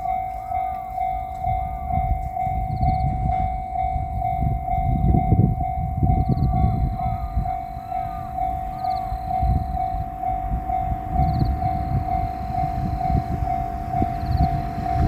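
Railroad crossing bell ringing steadily at about three strokes a second, while a JR Shikoku 8000 series electric train passes with a rumble and repeated clatter of its wheels, loudest about five seconds in.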